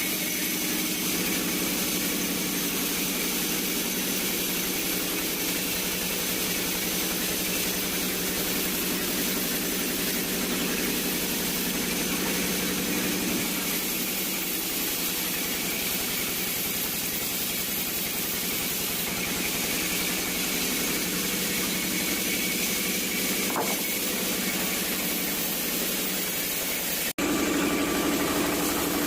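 Timber saw machine running steadily, a constant machine hum with hiss. About 27 seconds in the sound cuts out for an instant and returns a little louder with a deeper hum.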